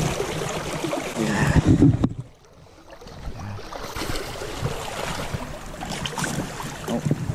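Shallow river water swishing and splashing around wading legs and a large steelhead held in the current for release, with wind buffeting the microphone. The sound drops away sharply about two seconds in, then slowly builds back to a steady rush.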